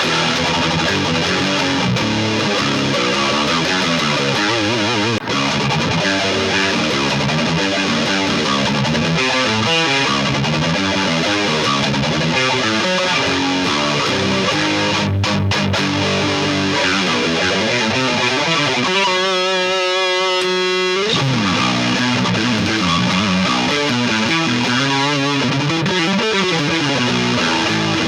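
Jackson 7-string electric guitar played through an amp: continuous riffing and single-note runs, with a note held and wavered in pitch about two-thirds of the way through.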